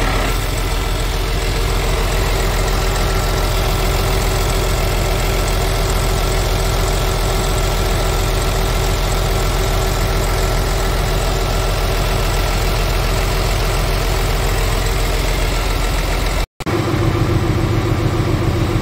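Scania R 450 truck's 13-litre inline-six diesel idling steadily, heard close to the open engine bay. A brief break near the end, after which the idle comes back with a more distinct beat.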